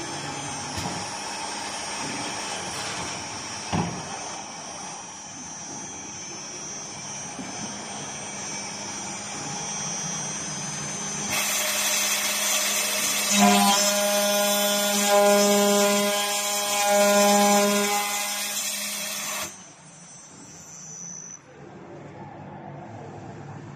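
CNC milling and drilling machine for window profiles: a steady machine hum, then about eleven seconds in the spindle starts up with a loud hiss and a steady pitched whine as it cuts for about eight seconds. It stops abruptly, and a high whine falls away as the spindle winds down.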